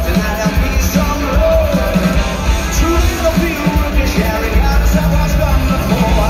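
Live rock band playing in an arena, heard from the crowd: electric guitar, bass and drums, with a male voice singing lead.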